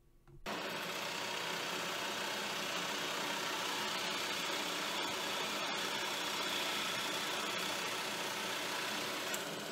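JET drill press running at about 1,000 RPM, a little fast for a 1 1/4-inch bit in hardwood, as the bit bores into a walnut blank: a steady motor and cutting noise that starts suddenly about half a second in and eases slightly near the end.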